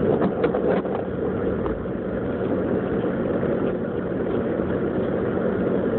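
Steady in-cabin drone of a Jeep Grand Cherokee driving: engine hum under road and tyre noise, with a few faint clicks in the first second.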